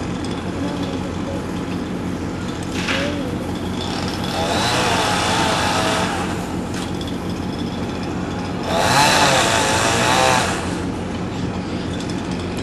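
Power saw cutting into a wooden barn post in two bursts of a couple of seconds each, about four and nine seconds in, its pitch wavering under load, over a steady low hum.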